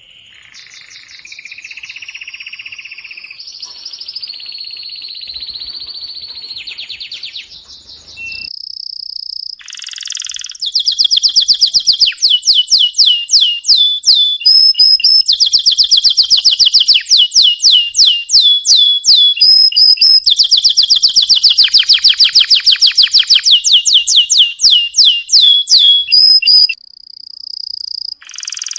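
Domestic canary singing: a soft, varied warble at first, then from about ten seconds in loud, rapid rolls of repeated downward-sliding notes, broken by short pauses and a few brief held whistles.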